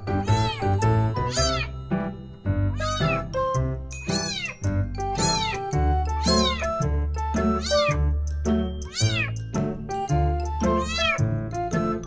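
A kitten meowing over and over, about once a second, each meow high-pitched and rising then falling. It is a newly adopted kitten that has not yet settled into its new home and keeps crying.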